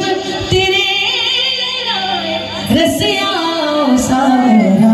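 A woman singing a Khatu Shyam bhajan, a Hindi devotional song, in long, wavering sung phrases with short breaths between them.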